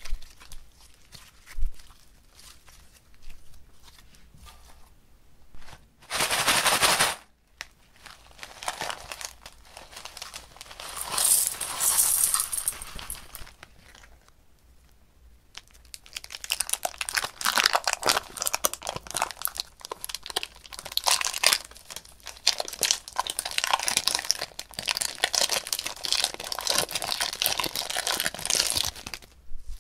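Hands working slime in a glass dish. It starts with scattered sticky pops and clicks. A couple of short rustling stretches come partway through as sequin glitter goes in. The longer second half is dense crinkling and crackling as pink foam-bead slime is squeezed out of a plastic bag.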